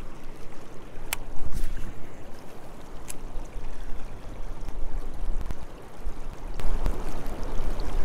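Shallow river water rushing over rocks in a steady wash, with a few sharp ticks.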